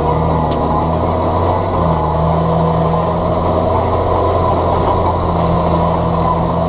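John Deere 7710 tractor's six-cylinder diesel engine running steadily under load, its pitch shifting only slightly.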